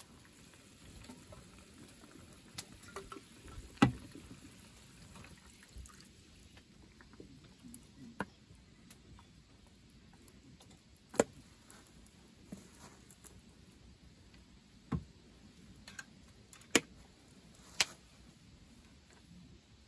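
Cooking sounds around a steel frying pan of simmering soup on a camp stove: a scattering of sharp clicks and taps from utensils, chopsticks and a seasoning pouch, over a faint steady background.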